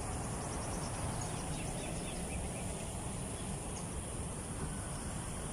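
Outdoor ambience: a steady background hiss and low rumble, with a few faint, high chirps from birds or insects.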